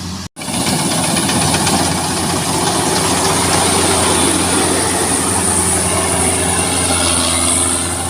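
Rice combine harvester running under load at close range, its diesel engine humming steadily under a high whine from the threshing and cutting machinery. A short break comes about a third of a second in, and after it the machine is louder.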